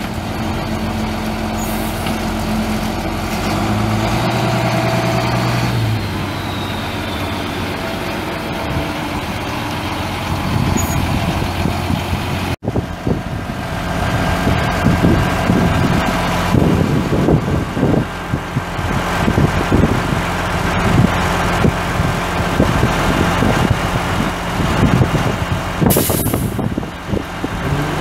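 A 1991 International 4900 truck's DT466 inline-six turbo diesel running steadily, with a brief hiss of air near the end.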